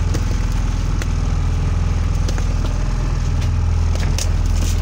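A boat's engine running steadily at an even speed, with a few short clicks and taps scattered over it.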